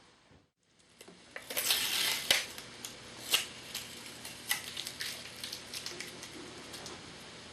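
Small tools and parts handled on a workbench: a short scraping rustle about a second and a half in, then scattered sharp clicks and taps.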